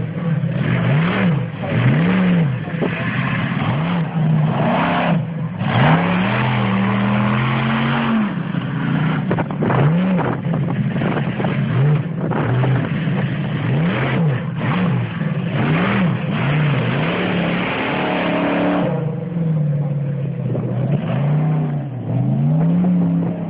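Raminator monster truck's supercharged V8 revving hard, its pitch sweeping up and down every second or two with one longer held rev partway through. The sound grows duller and more distant near the end as the truck drives away.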